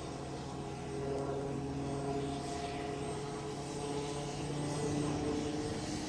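Piasecki X-49A SpeedHawk compound helicopter flying past overhead: a steady drone of turbine engines, main rotor and ducted tail propeller. It gets a little louder about a second in, and its tones drift slightly in pitch.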